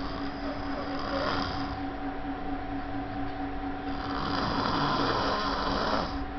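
A sleeping pet snoring: a short snore about a second in, then a longer one from about four seconds to six, over a steady background hum.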